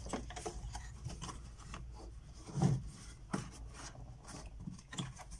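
Mat board and paper rubbing and scraping as they are pressed flush into a picture frame, with scattered light taps and a soft thump about two and a half seconds in.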